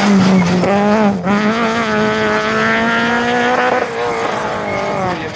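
Peugeot 106 rally car engine at high revs. A short lift about a second in, then the revs climb steadily for a couple of seconds before dropping again near the four-second mark.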